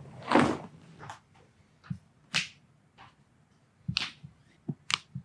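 A run of short, sharp cracks and pops from a chiropractic back adjustment, about eight in five seconds, as the spinal joints release under the adjuster's thrust. The loudest come near the start and about two and a half seconds in.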